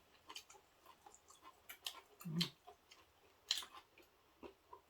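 Mouth-close eating sounds: chewing, with a scatter of small sharp clicks and crackles. A brief hummed vocal sound comes about two seconds in.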